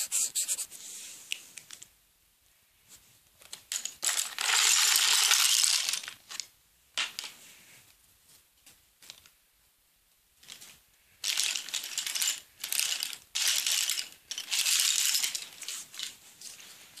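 Paper and craft materials being handled: bursts of rustling and crinkling, a long one about four seconds in and a run of them from about eleven to sixteen seconds, with scattered clicks and taps between.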